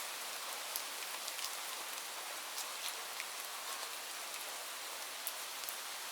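Steady rain falling: an even hiss with scattered sharper drops landing nearby.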